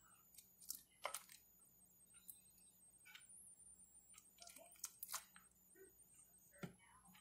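Faint, scattered clinks and taps of a serving spoon against a pot and a bowl as thick stew is spooned into the bowl, a few light knocks over quiet room tone.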